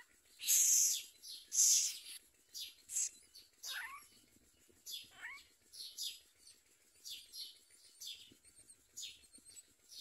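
Common myna nestlings begging at the nest: a run of short, raspy, hissing calls, the two loudest about half a second and a second and a half in, then softer ones repeating about every half second. Two brief falling notes come around four and five seconds in.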